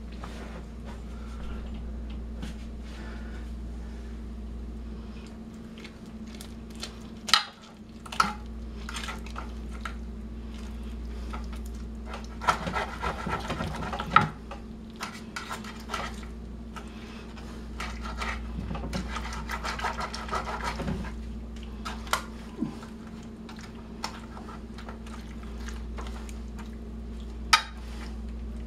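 Metal knife and utensil scraping and clinking against a glass baking dish while carving a cooked whole chicken, with a few sharp clinks and two longer stretches of scraping, over a steady low hum.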